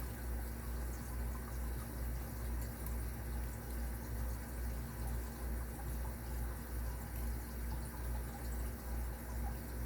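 A steady low hum that swells and fades about twice a second, under an even hiss, with a few faint ticks.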